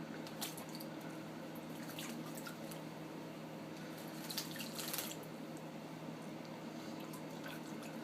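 Water running and dripping from a tap as a pet bird bathes under it, with a few short splashes, the strongest about four to five seconds in.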